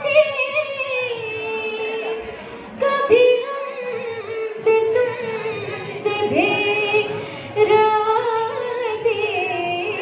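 A girl singing an Urdu ghazal solo, holding long notes that bend and glide between pitches in a few sustained phrases.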